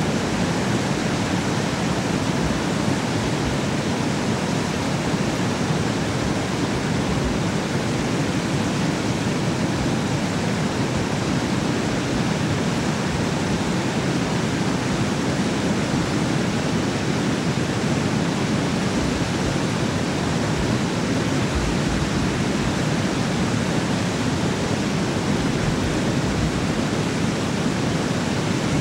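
Water pouring through the open gates of a concrete dam and churning into whitewater below: a loud, steady rush with no breaks.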